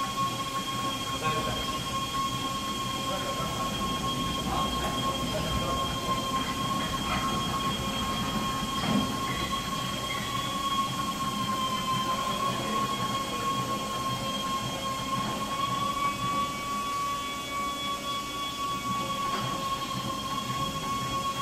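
A CNC vertical wheel lathe diamond-cutting the face of an alloy wheel, its tool on the spinning rim giving a steady whine with a slight wavering in pitch over a bed of machine noise.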